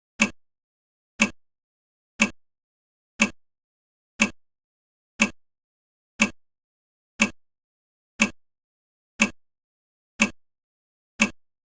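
Countdown timer ticking, one short, sharp clock tick every second with silence between.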